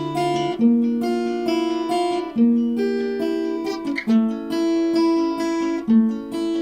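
Acoustic guitar playing slow chords on its own between sung lines, a new chord struck about every two seconds and left to ring.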